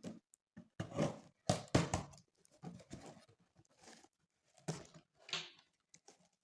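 Packaging being handled and opened by hand: an irregular series of short rustles and light knocks, loudest about one and a half to two seconds in.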